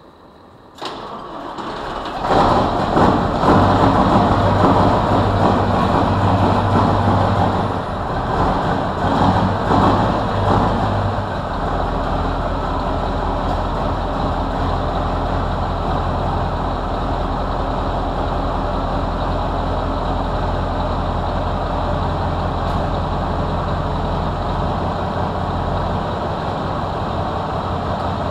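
Scania 142M's V8 diesel engine cold-started after nearly two weeks standing: it cranks briefly about a second in and catches, runs loud and uneven for several seconds, then settles into a steady idle about eleven seconds in.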